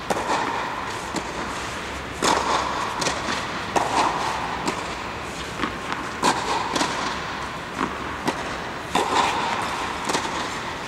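Tennis ball being hit with a racket and bouncing on a clay court: irregular sharp knocks, with a few loud hits every couple of seconds and lighter bounces between, echoing inside an air-supported tennis dome.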